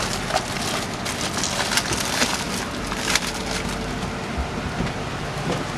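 Irregular plastic clicks and crackles as a black oval plastic air-conditioning vent fitting is handled and worked by hand, over a steady low hum.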